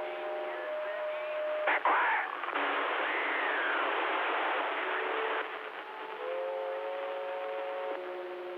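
Stryker CB radio's speaker giving steady band hiss with several steady whistling tones at different pitches coming and going, heterodynes from carriers on the channel. A click and a short swooping warble come about two seconds in.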